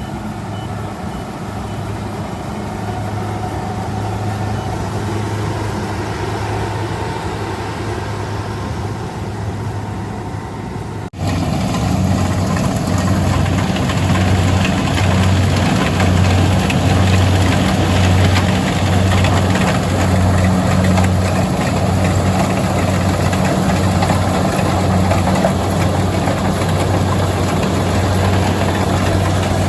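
Kubota DC-70G rice combine harvester running steadily under its diesel engine, a continuous low drone. About eleven seconds in the sound breaks off sharply and comes back louder and fuller, with a faintly pulsing low throb.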